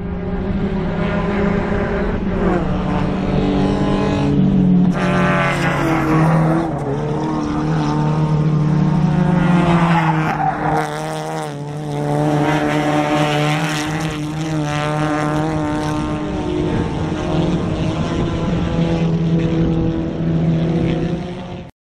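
Race car engines running hard around the circuit, their pitch holding and then rising and falling as the cars accelerate and slow.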